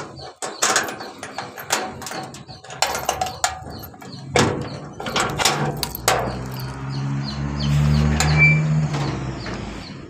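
Keys jingling and a brass padlock clicking and rattling as it is unlocked on a sheet-metal door, a string of sharp clicks. Then a low scraping rumble lasting about three seconds as the metal door is pushed open.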